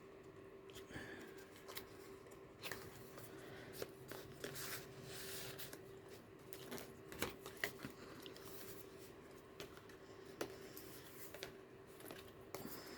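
Quiet rustling and handling of paper pages and inserts in a handmade junk journal, with scattered soft taps and clicks, over a faint steady hum.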